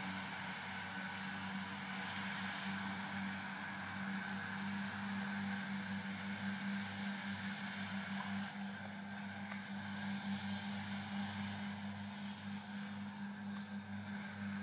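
Claas tractors at work mowing grass with front and side disc mowers: the engines and mower drives make one steady drone that holds its pitch.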